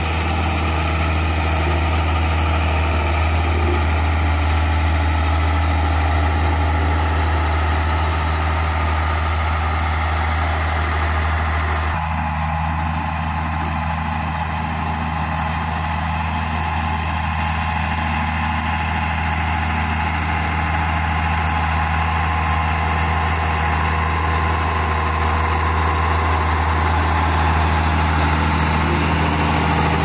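Diesel engine of a single-drum road roller running steadily as it rolls over a gravel road base: a loud, even low hum. The tone shifts abruptly about twelve seconds in.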